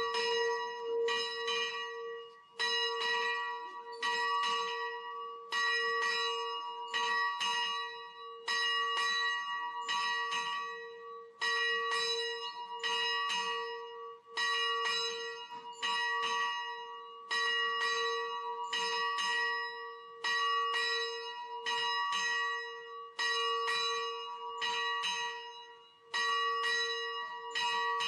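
A single church bell ringing steadily, struck about once a second, each stroke ringing on into the next.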